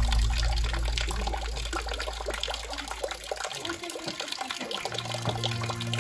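Water falling into a small stone water jar, a steady trickle and splatter with many small splashes.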